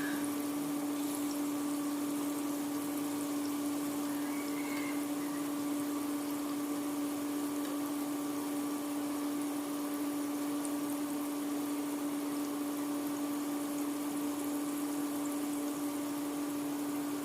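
Floured sand goby pieces frying in hot oil, sizzling steadily as they brown, over a continuous low hum.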